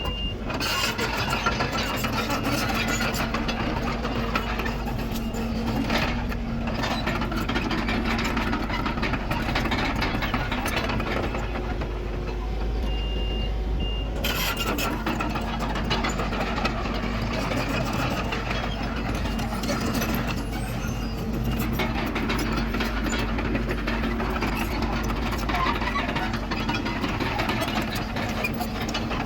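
Heavy diesel earthmoving machinery running steadily, a bulldozer at work with dump trucks, its engine drone unbroken. Short high beeps sound a few times, twice in quick succession around the middle.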